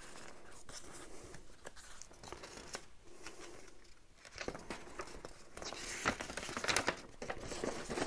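Printed paper airplane template sheets rustling and sliding against each other as they are handled. The crinkling and rustling grow louder and busier in the second half.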